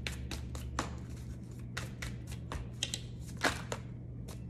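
Tarot deck being shuffled and cut by hand: an irregular run of crisp card clicks and slaps, several a second, over a steady low hum.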